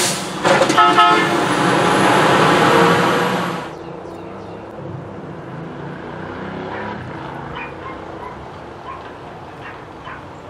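Automated side-loader garbage truck pulling away from the curb: a short high toot about a second in, over a loud hiss that cuts off suddenly after about three and a half seconds, leaving the truck's engine fading to a low rumble.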